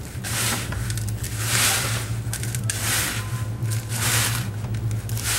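Bare hands mixing coarse kosher salt, rock salt and baking soda in a glass bowl: a gritty crunching scrape in repeated strokes, about one a second. A steady low hum runs underneath.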